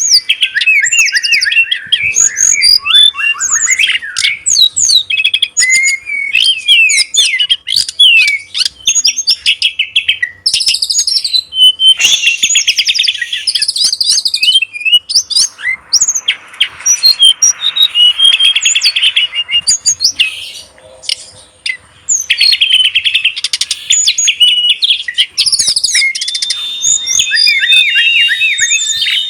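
Pet songbird singing a fast, continuous stream of chirps and trills, with a short lull about two-thirds of the way through and a long held high note near the end.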